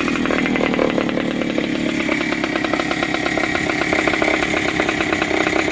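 Two-stroke single-cylinder engine of a 1975 Hodaka Dirt Squirt dirt bike idling steadily after its rebuild, with a fast, even putter that holds the same level throughout.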